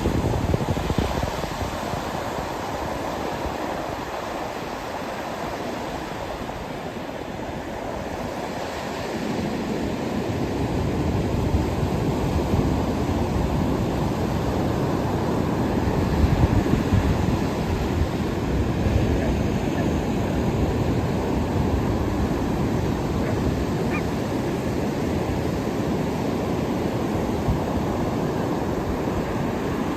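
Ocean surf: waves breaking and washing in as a steady rushing noise, swelling louder after about a third of the way in.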